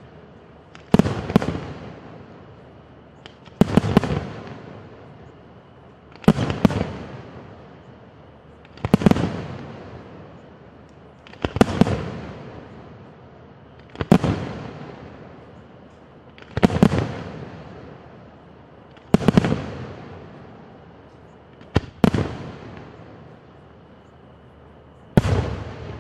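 Aerial firework shells bursting one at a time, a sharp bang about every two and a half seconds, each followed by a rolling echo that dies away.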